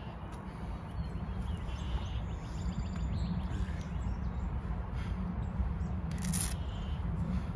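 Steady low background rumble with faint bird chirps, and a brief noisy burst about six seconds in.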